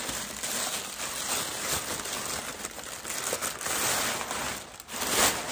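Packaging crinkling and rustling as a bottle is unwrapped from it, with a louder burst of crinkling near the end.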